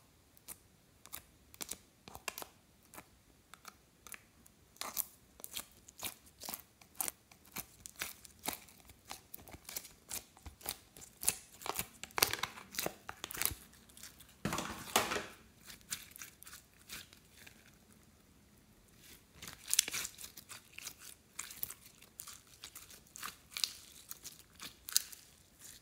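Glossy slime peeled out of a plastic mold and kneaded and stretched by hand: a stream of small sticky clicks and pops, with a longer drawn-out stretch of sound about halfway through.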